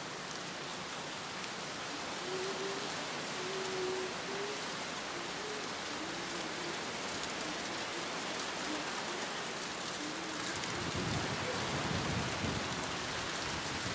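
Steady hiss of hurricane rain and wind. In the last few seconds, gusts buffet the microphone with low rumbles.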